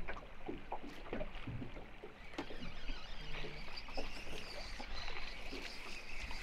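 Water lapping against the hull of a small boat, with scattered light clicks and ticks as a spinning reel is handled and turned to work a lure.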